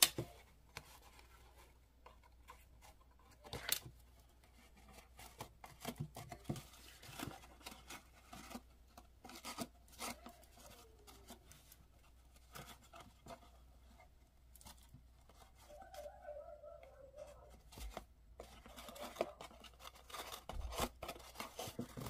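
Light, irregular rustling, scraping and tapping of cardstock and ribbon as a metal stylus pushes ribbon through punched holes in a paper box, with occasional sharper clicks.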